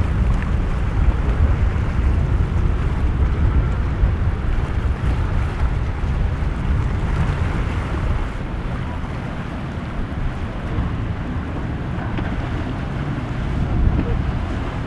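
Gusty wind rumbling on the microphone over breaking waves and surf, with a boat running through rough water. The low wind rumble eases about eight seconds in.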